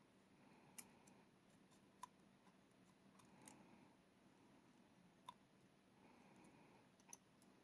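Faint, scattered small clicks and light scraping from handling the small parts of a pin-tumbler rim cylinder during reassembly.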